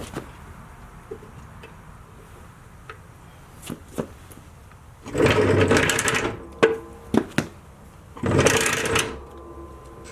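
Metal clicks and knocks from snowplow mounting hardware being fitted to a garden tractor, with two bursts of rapid rattling of about a second each, a few seconds apart.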